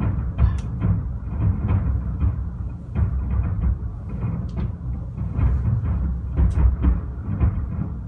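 Fireworks going off in quick succession: a dense run of deep booms with sharp cracks and bangs on top.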